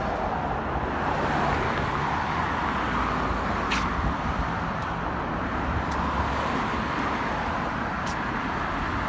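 Road traffic on a city street: cars driving past with a steady mix of tyre and engine noise.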